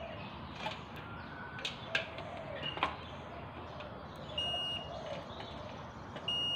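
Multimeter continuity buzzer beeping across a rice cooker's heating element: a short beep a little past halfway, then a longer steady beep starting near the end, showing the element has continuity and is okay. Light clicks and faint chirps sit underneath.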